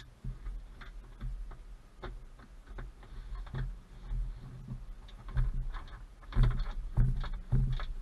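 Irregular clicks and clinks of a socket and bolt being handled at the car's floor pan, over a low rumble. The clicks grow louder and come closer together in the last two seconds.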